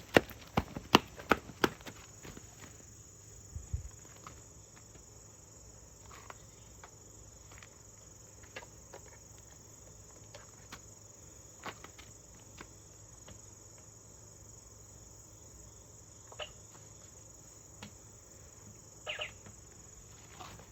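A quick run of sharp clicks and knocks in the first two seconds, then scattered single clicks, over a faint steady high-pitched whine.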